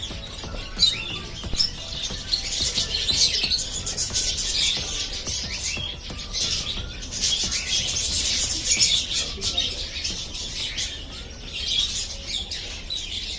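Many small birds chirping and twittering at once, their high calls overlapping densely.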